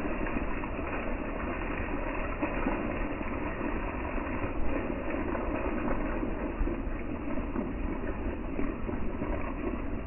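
Rain falling steadily on the leaves of a broadleaf forest, an even noise with no pauses.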